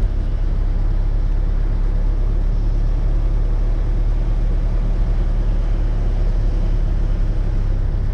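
Steady low rumble of a car being driven, road and engine noise without change.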